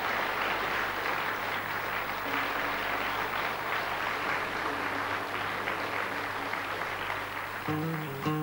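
Audience applauding. Near the end a nylon-string classical guitar starts playing a few held notes.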